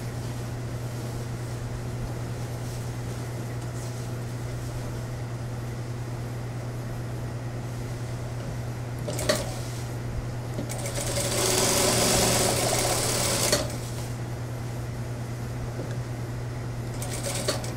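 Industrial lockstitch sewing machine stitching a suit jacket sleeve in one run of about three seconds, with a click just before it and a click as it stops, over a steady low hum; a shorter stitching run starts near the end.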